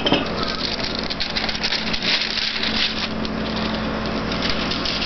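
Rustling and crinkling of a clear plastic sheet being peeled off rolled-out dough and handled, busiest in the first half, over a steady low hum.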